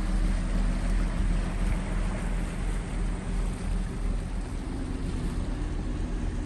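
Fishing boat's engine running with a steady low hum, slowly fading as the boat moves off, over a hiss of wind and water.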